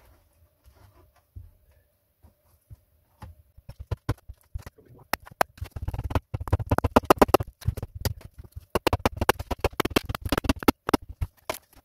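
Hatchet hacking and chipping bark and rotten wood off an upright birch log in quick, light strokes, several a second. The strokes start a few seconds in and grow denser.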